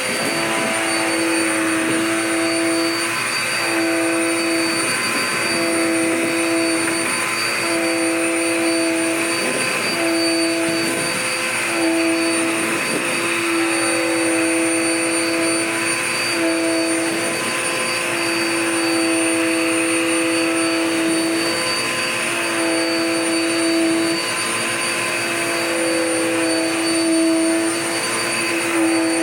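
Dirt Devil Power Max vacuum cleaner running, with a steady high-pitched motor whine and a lower tone that breaks off and comes back every second or two.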